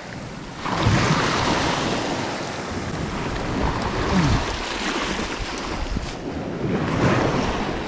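Sea waves washing onto the shore in three surges of rushing water, with wind buffeting the microphone.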